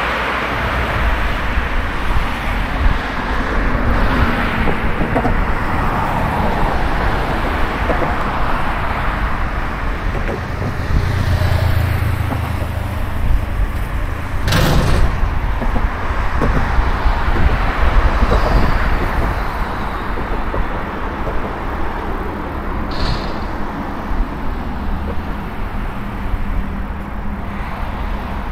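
Steady road and traffic noise, with one sharp knock about halfway through and a brief high squeak near the end.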